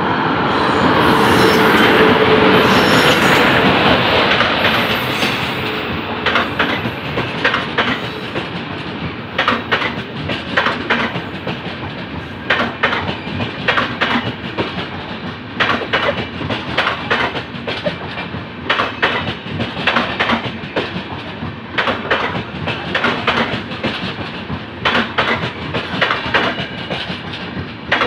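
A WAP-7 electric locomotive passes close by with a loud rush and a steady hum. Then a long rake of LHB passenger coaches rolls past, their wheels clacking in quick pairs over the rail joints above a steady rumble.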